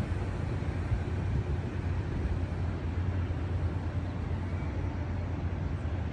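Steady low outdoor rumble with an even hiss over it, with no distinct events.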